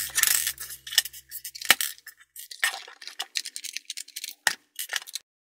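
Plastic housing of a Xiaomi cordless vacuum's floor brush head being taken apart by hand: a brief scrape, then a run of clicks, clinks and knocks as the cover comes off and the parts are set on the desk, with the loudest knocks about a second and a half in and again near the end.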